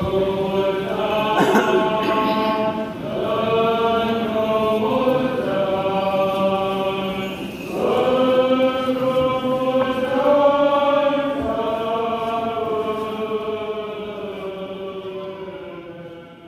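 Orthodox church chant: voices singing long held notes in slow phrases, fading out near the end.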